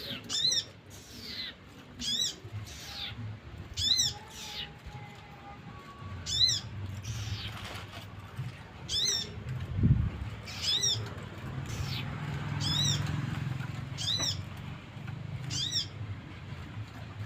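A young pet songbird, the kind its keeper calls a sogon, giving short, high, mewing calls, each rising and falling, about nine of them spaced a second and a half to two and a half seconds apart. A low steady hum runs underneath, and there is a soft thump about ten seconds in.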